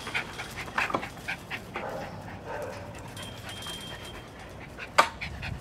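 A dog panting rapidly, about four short breaths a second, with a sharp click about five seconds in.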